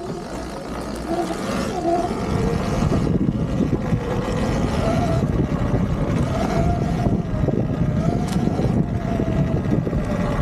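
Sur-Ron Ultra Bee electric dirt bike being ridden on rough singletrack. The motor's whine rises and falls with the throttle over a rough rumble from the bike on the ground, which grows louder about two seconds in.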